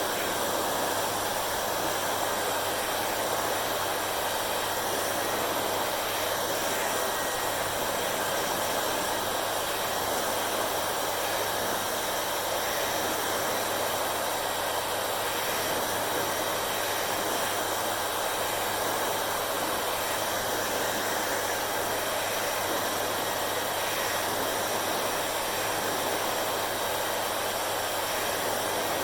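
Hair dryer running steadily: an even rushing blow of air with a low motor hum underneath.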